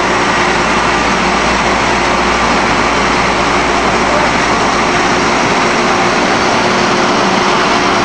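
Corn flakes production line machinery running: screw conveyor, extruder and rollers together giving a loud, steady mechanical noise with faint steady hums underneath.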